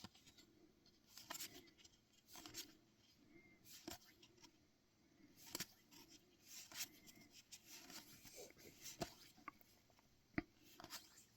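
Faint, irregular swishes and soft ticks of trading cards being slid and flipped one behind another in the hand, with one sharper tick near the end.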